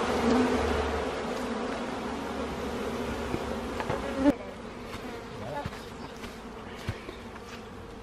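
Honeybee colony buzzing loudly in an opened dishwasher, disturbed by comb being cut out of it. The buzz drops sharply about halfway through, leaving a fainter hum with a few small knocks.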